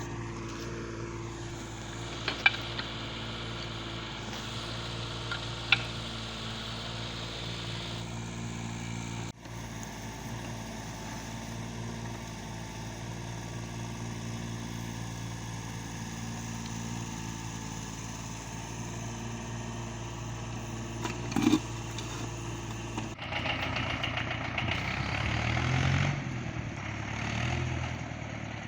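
Engine of a work vehicle running steadily, with two sharp knocks in the first six seconds. In the last few seconds the engine note rises and falls.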